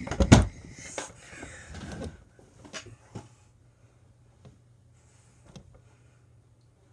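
Close handling noise: a loud thump just after the start, then rustling and a few light knocks and clicks that thin out, over a steady low hum.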